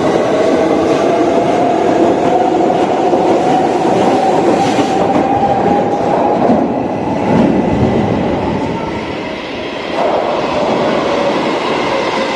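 Loud, steady rumbling noise with a whining tone that slowly rises and later falls; it eases off briefly and comes back abruptly about ten seconds in.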